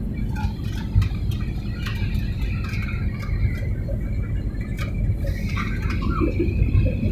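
Steady low rumble of a jet airliner's engines and airflow heard inside the passenger cabin during the climb, with a few faint clicks.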